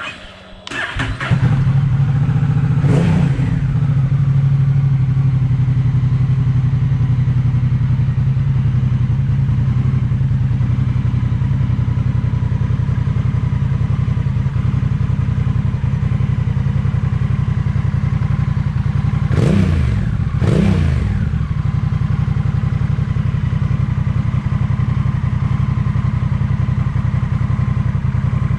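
Honda Rebel 1100's parallel-twin engine breathing through a Noy Custom slash-cut stainless-steel slip-on exhaust. It starts up and settles into a steady idle, with one short throttle blip about three seconds in and two quick blips about twenty seconds in.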